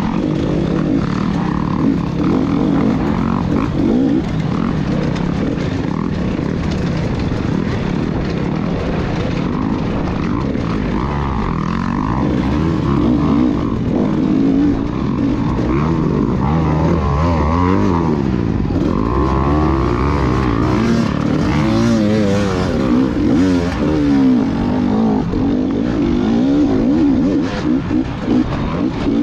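Off-road dirt bike engine being ridden hard, its revs rising and falling constantly as the throttle is worked, with quick up-and-down sweeps over the latter half.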